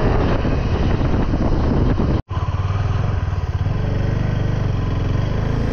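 Motorcycle engine running steadily while riding, with a sudden brief cut-out about two seconds in.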